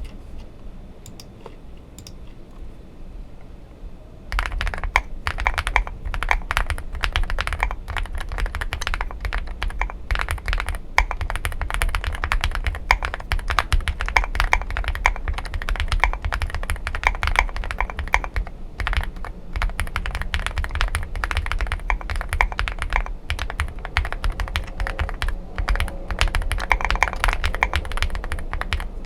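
Fast, continuous typing on a Zoom65 mechanical keyboard with lubed Jwick switches and Akko SAL keycaps, a dense stream of key strikes that starts about four seconds in after a few faint clicks.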